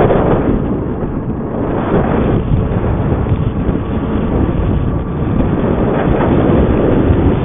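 Wind rushing and buffeting over the microphone with a steady low rumble, from riding a G-Force ZM electric e-bike at full speed.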